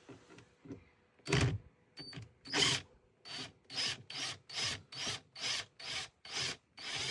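Drill run in short repeated bursts, about two a second, driving out the door lock screws on a washing machine.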